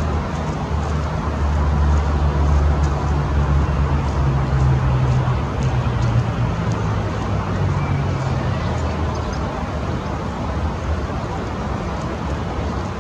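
Road traffic: a low, steady vehicle engine rumble that eases off about nine seconds in.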